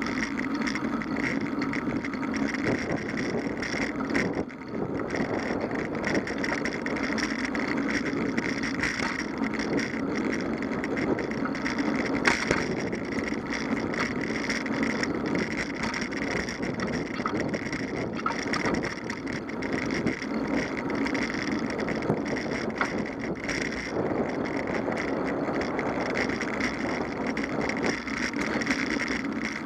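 Bicycle rolling along asphalt paths: steady tyre and road noise with wind on the microphone. There is a single sharp knock about twelve seconds in.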